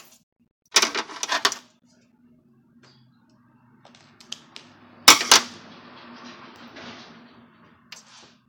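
Beads of a beaded bracelet clicking and clattering as it is handled and snipped apart with small scissors: a quick run of clicks about a second in, a louder clatter about five seconds in followed by a soft rustle, and a few clicks near the end.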